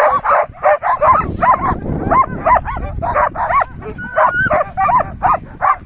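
A team of sled dogs barking and yelping, a rapid string of short, high calls that overlap and keep coming.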